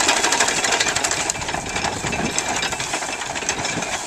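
Corn chopper driven by a mule walking a treadmill power: a fast, even mechanical clatter of the gearing and cutter knives as corn stalks are fed in.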